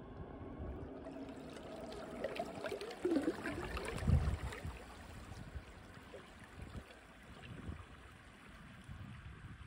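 Water trickling and gurgling, with a low thump about four seconds in.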